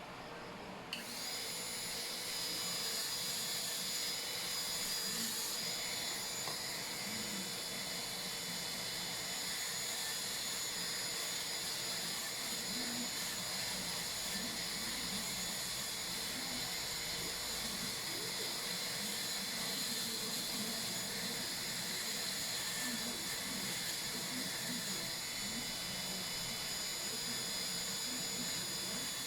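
High-speed dental drill (handpiece) starting about a second in and running steadily with a high whine, cutting a Class II cavity preparation in a lower molar for an amalgam filling.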